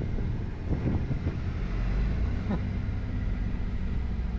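A car driving, heard from inside its cabin: a steady low rumble of engine and road noise.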